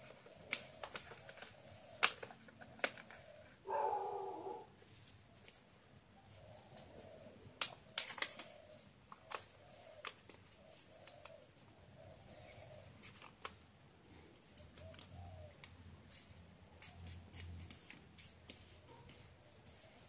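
Origami paper rustling and crackling as it is handled and creased by hand, with sharp crackles about two seconds in and near eight seconds. A short animal call stands out about four seconds in, and softer low calls come and go in the background.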